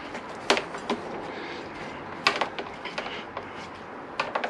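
Rubber heated handlebar grip being pushed and twisted onto the glued clutch-side handlebar. A handful of sharp clicks and knocks from the handling sound over a steady background hiss, with a quick cluster of them near the end.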